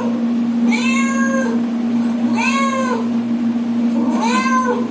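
Cat meowing three times, each meow rising and then falling in pitch and lasting under a second.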